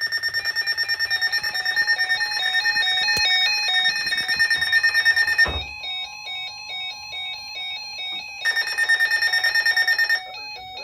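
Several NOAA weather radios alarming at once for a tornado warning. A high beep pulses about five times a second over warbling two-note alert tones. From a little past halfway until about three quarters through, the beeping gives way to a steady single tone, the weather service's warning alarm tone. The beeping returns and then stops shortly before the end.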